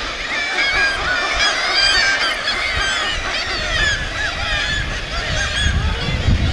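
A dense chorus of many gulls screeching at once at a crowded breeding cliff, calls overlapping without a break. A low rumble joins in near the end.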